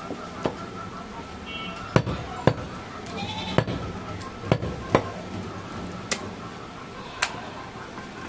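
Sharp knocks of butchers' knives chopping meat on wooden blocks, about eight at irregular intervals, over a background of market voices. A short bleat-like call comes about three seconds in.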